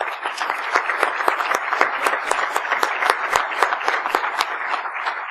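Audience applauding: many people clapping together, thinning out near the end.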